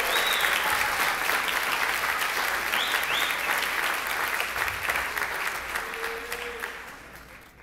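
Theatre audience applauding, with a couple of short high whistles in the crowd. The applause dies away over the last second or so.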